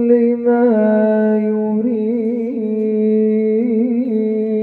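A man's voice chanting Quran recitation in a melodic style through a PA loudspeaker, holding long steady notes broken by quick wavering ornaments.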